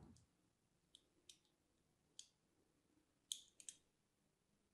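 Small crisp clicks of a blade cutting into a dry, crosshatch-scored bar of soap, about seven scattered ones, with a quick pair a little past three seconds in.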